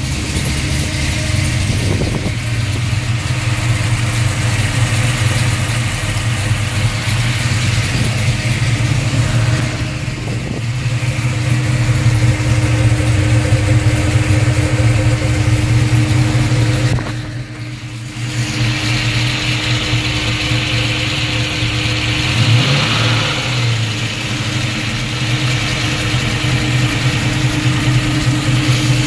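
Car engine running at idle under the open hood, unsteady: the sound sags briefly about ten seconds in and again more deeply past the middle, then wavers near the end. The owner says it sounds funny, like it is fighting to run.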